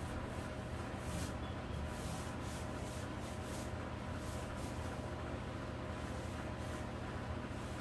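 Soft rubbing strokes of paint being applied by hand along a wooden kitchen cabinet rail, coming irregularly about once a second, over a steady low hum.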